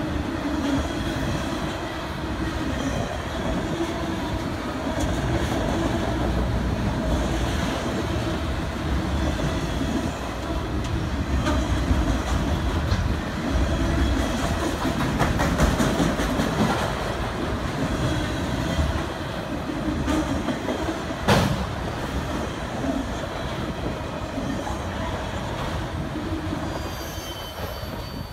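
Freight train of autorack cars rolling past: a steady rumble of steel wheels on rail, with a run of wheel clicks partway through and one sharp knock about three-quarters of the way in. Near the end the last car goes by and the rumble drops away.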